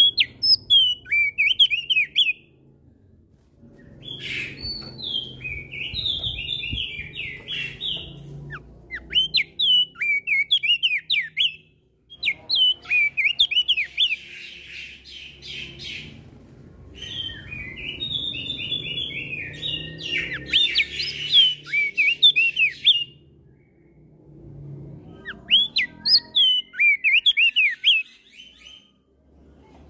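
Crested dark-eye (opior jambul) singing in quick, twittering phrases of a few seconds each, separated by short pauses, mixed with the calls of other songbirds, over a faint low hum.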